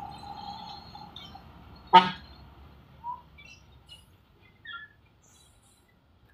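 One short horn toot from a vehicle in the truck queue about two seconds in, over engine and traffic noise that fades away. Faint bird chirps follow.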